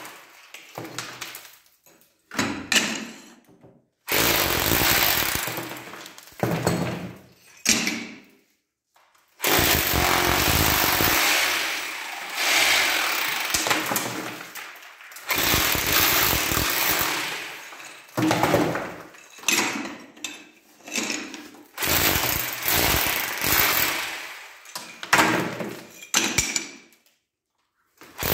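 Electric rotary hammer with a chisel bit chipping ceramic wall tiles off their adhesive, run in repeated bursts of one to three seconds with short pauses between them.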